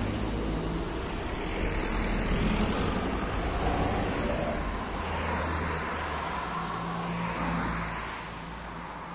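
Cars and a bus driving past one after another, with engine hum and tyre noise. The traffic thins out and the sound eases off near the end.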